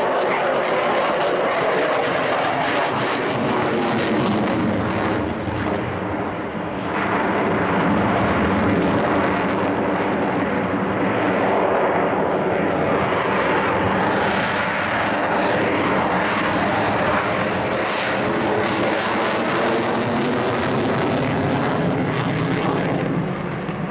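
Lockheed Martin F-22 Raptor's twin Pratt & Whitney F119 turbofans as it flies a display overhead: continuous loud jet noise. It dips briefly about six seconds in and eases off near the end.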